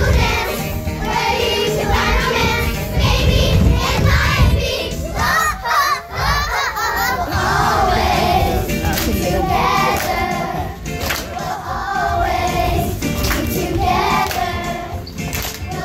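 Music playing with children's voices singing along, over crowd noise from an audience.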